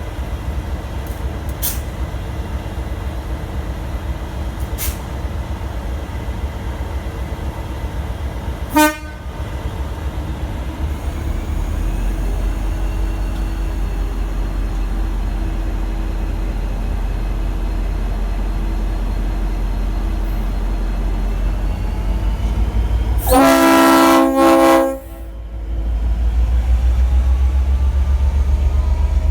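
V/Line N class diesel locomotive's EMD 12-645 two-stroke engine idling with a steady low pulsing rumble, then throttling up about twelve seconds in and again near the end as the train pulls away. Its Leslie RS5T five-chime horn gives a brief toot about nine seconds in. Later it sounds a loud chord blast of about a second and a half, briefly broken in the middle.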